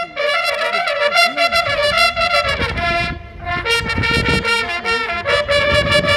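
Military bugle band playing: a line of bugles sounding a brisk tune in quick short notes, with drums and cymbals joining about a second and a half in. The bugles drop out briefly about three seconds in while the drums carry on.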